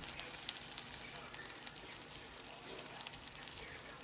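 Pancakes frying in a little oil in a hot pan, freshly flipped: a steady sizzling hiss with scattered small crackles and pops.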